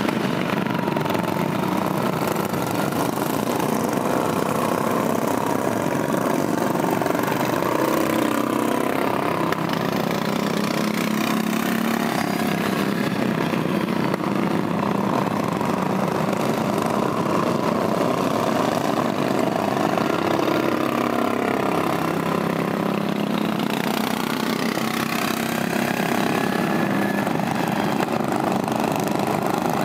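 Racing riding lawn mowers running hard around a dirt track, their small engines making a steady drone whose pitch rises and falls as they rev and pass.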